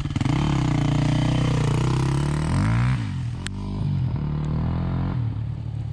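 Dual-sport motorcycle engine revving hard as it accelerates, its pitch dropping sharply about three seconds in and then running lower and fading toward the end. A single sharp click comes about three and a half seconds in.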